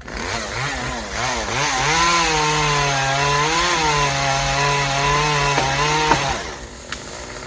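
Chainsaw revving up and running at full throttle through a cut, with its pitch wavering slightly under load. It drops off sharply about six seconds in.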